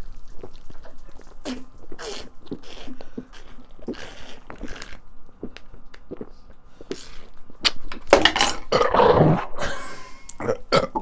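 A man gulping and slurping beer from a can pierced low on its side, with irregular wet gulps and splashes and a long, loud spluttering burst about eight seconds in as the shotgunned beer goes wrong.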